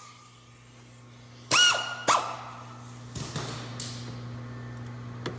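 Handheld air tool running bolts in: two short bursts about half a second apart, each spinning up and winding down, then a few light metallic clicks, over a steady low hum.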